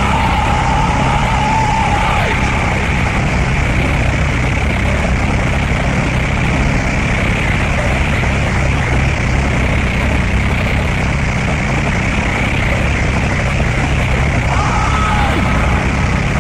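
Power electronics noise track from a cassette: a dense, unbroken wall of harsh noise over a heavy low rumble. A thin wavering tone rides on top at the start, fades about two seconds in, and returns near the end.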